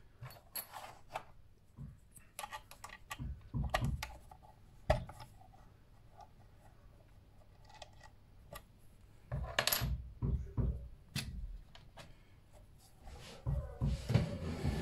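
Irregular small metallic clicks, taps and clinks of metal parts and tools being handled, with no motor running.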